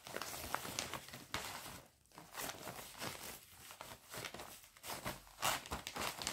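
Plastic bag crinkling and rustling as an embroidery kit is slid back into it, in irregular spurts with a brief lull about two seconds in.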